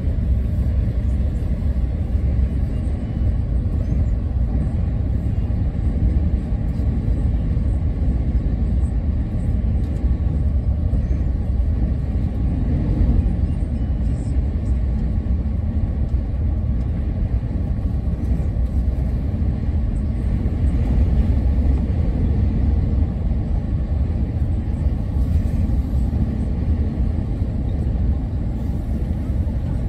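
Steady low rumble of road and engine noise heard from inside a vehicle travelling at motorway speed.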